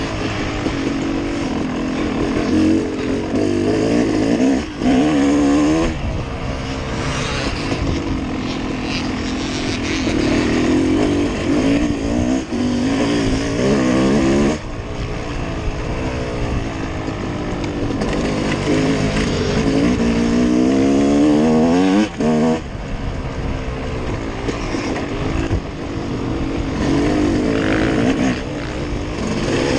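Trail motorcycle engine running under load over rough ground, its revs rising and falling with the throttle. The revs drop off sharply about halfway through and again a little later, and a few short knocks sound in between.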